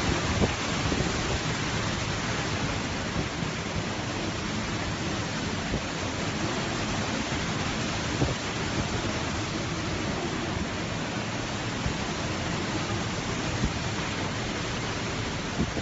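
Typhoon wind and driving rain: a steady, dense rush of noise with gusty low rumbling against the microphone and a few sharp knocks.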